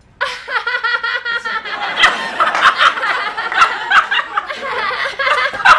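Two women laughing loudly and theatrically. It is forced, high-pitched laughter put on to draw attention.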